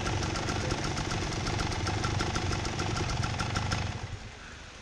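Two-stroke dirt bike engine idling with an even, rapid beat, then cutting out suddenly about four seconds in.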